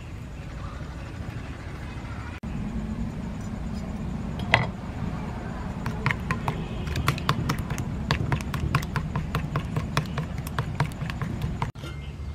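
A metal spoon clinking against a ceramic bowl as a sauce with chopped green onion is stirred: a quick run of light clicks, about five a second, for several seconds starting about six seconds in. A steady low rumble underneath.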